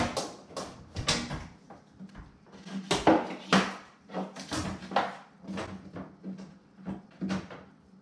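Irregular knocks, taps and scraping as a microwave's power cord and plug are worked through a hole in the wooden cabinet bottom above it, bumping the cabinet and the microwave's top.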